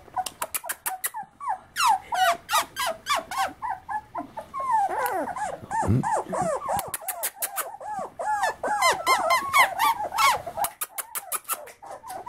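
A litter of young beagle puppies whimpering and squealing: short high squeaks that fall in pitch, coming quickly one after another. From about four seconds in, several puppies whine at once in an overlapping chorus.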